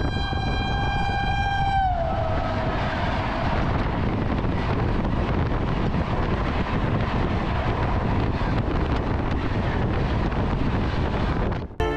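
An oncoming train's horn sounds one long blast and drops in pitch as it passes. It is followed by the steady loud roar of wheels on rail and rushing wind as two trains pass each other at speed, heard from an open coach doorway.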